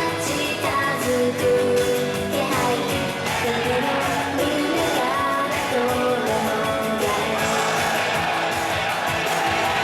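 Upbeat J-pop idol song with guitar backing and young women's voices singing the melody together, played loud over a stage sound system.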